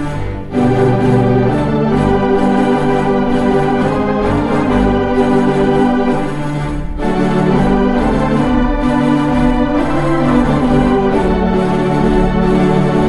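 Four-manual, 24-rank Wurlitzer theatre pipe organ playing sustained full chords, with brief breaks between phrases about half a second in and again about seven seconds in.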